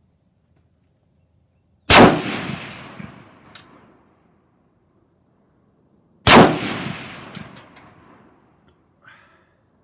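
Two rifle shots about four and a half seconds apart, each echoing away over a second or two, with a few faint clicks after them.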